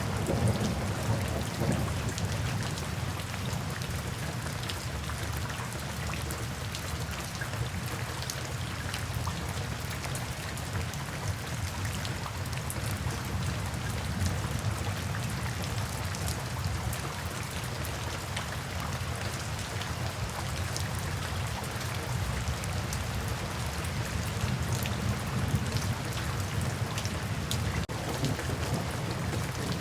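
Steady rain with many individual drops ticking, over a low rumble of thunder that is strongest in the first few seconds and then fades to a faint background.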